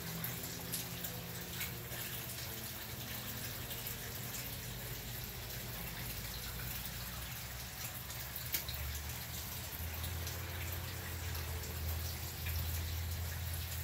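Koi pond water trickling and splashing steadily, with small drips and splashes scattered through it. A low rumble grows louder in the last few seconds.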